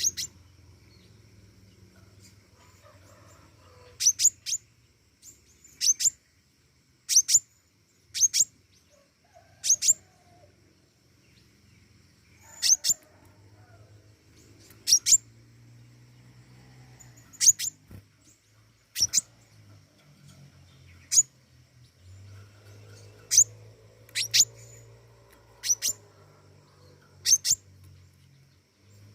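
A pentis raja (flowerpecker) calling in full song: very short, sharp high chirps, often in quick pairs, repeated every second or two. A faint low hum and a faint steady high whine lie behind the calls.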